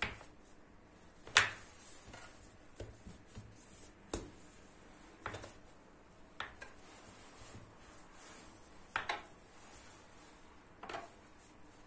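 Metal bench scraper chopping down through pizza dough and tapping on a granite countertop as the dough is divided into portions: about eight sharp taps, spaced unevenly a second or two apart.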